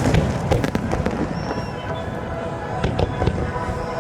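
Aerial fireworks bursting, with sharp bangs and crackles loudest at the start, over music playing underneath.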